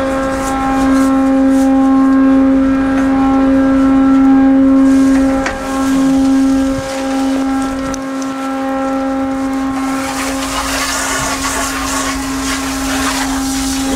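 Ship's deck machinery running with a steady, even-pitched hum. From about ten seconds in, a spray hose hisses as grab sediment is washed through a sieve.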